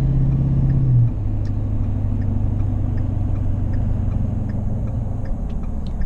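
Ford 6.7 L Power Stroke V8 turbo-diesel heard from inside the F-250's cab while driving: a steady low drone that drops in pitch and level about a second in as the truck eases off, then fades near the end. Faint light ticks are scattered through it.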